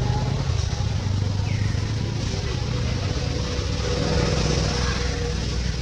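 A steady low engine rumble, like a motor vehicle running nearby, with no change in pitch.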